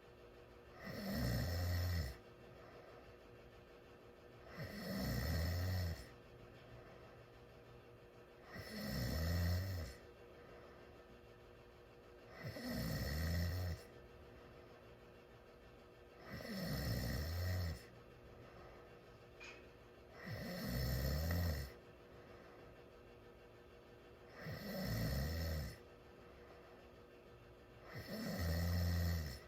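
A teenager snoring in sleep with the mouth wide open: eight regular snores, one about every four seconds, each lasting about a second.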